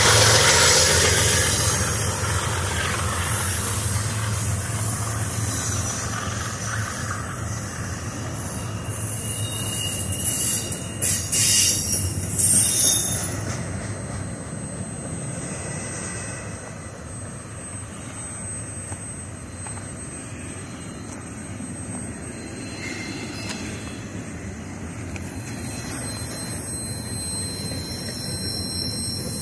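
Intermodal freight train passing close by: a diesel locomotive's low engine hum at first, then double-stack container cars rolling past with steady wheel-and-rail noise and a thin, high wheel squeal. A few sharp knocks come about eleven to thirteen seconds in.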